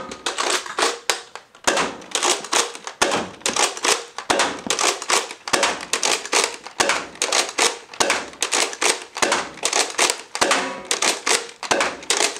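Nerf Rival Jupiter blaster firing foam rounds and being primed between shots until it is empty: a continuous run of sharp plastic clacks and pops, about two or three a second.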